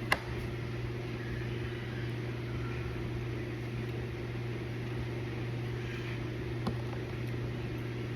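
A steady low machine hum, like a kitchen fan or appliance running, with a sharp click just after the start and a fainter one near the end.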